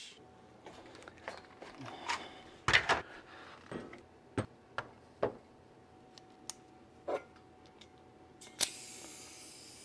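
Short clicks and knocks of a gas blowback pistol magazine being handled on a workbench, then, about eight and a half seconds in, a steady hiss of airsoft gas being charged into the magazine from a gas can.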